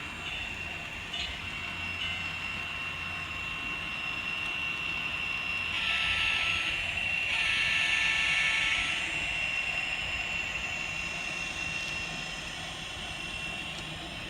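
Sound decoder in an N scale Kato SD40-2 playing diesel locomotive sounds through its small speaker. It runs steadily with a high held tone and swells louder for about three seconds in the middle.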